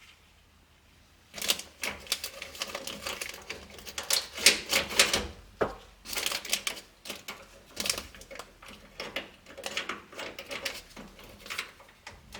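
Quick, irregular clicking and rattling of the sliding door's window winder and stop-switch mechanism being worked by hand, starting about a second in.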